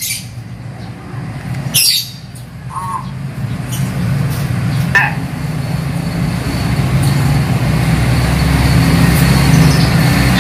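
A caged hill myna gives a few short, harsh calls in the first half, over a low vehicle engine rumble that builds toward the end.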